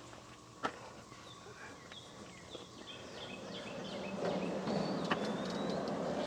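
A bird singing a run of short, falling chirps from about two to five seconds in, over faint outdoor background noise, with one sharp click shortly before and a rustling that grows louder in the second half.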